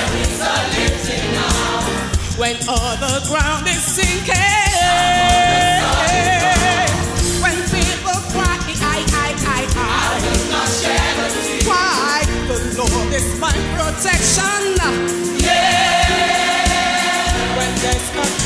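Gospel song with band and backing choir: a high lead voice sings with vibrato, holding one long note about a quarter of the way in and another near the end.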